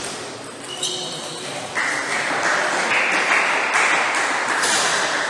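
Spectators applauding in a large hall after a point. The clapping starts abruptly about two seconds in and stays loud.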